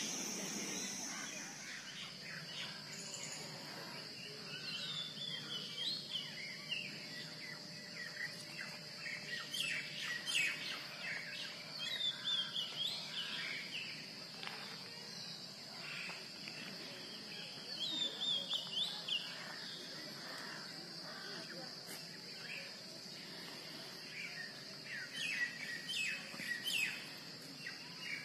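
Birds chirping and calling in the trees, many short falling notes in clusters that come and go, over a steady high-pitched insect drone.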